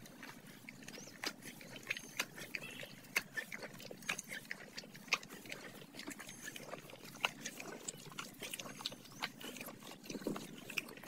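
A horse licking and mouthing a Himalayan pink salt block hanging on a rope: irregular clicks and smacks of its lips and tongue on the salt.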